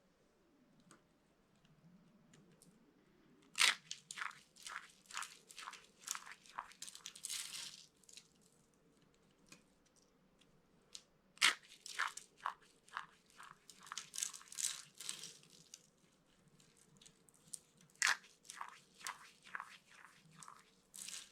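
Dry bar soap being crushed: three runs of crunching and crackling, each starting with a loud snap as the soap breaks, with short pauses between them.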